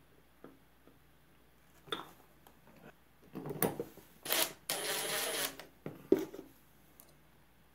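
Cordless drill-driver running steadily for about a second, a little after four seconds in, used on the carburetor's screws. It is preceded by clicks and knocks of the metal carburetor and screws being handled, with a sharp knock near the end.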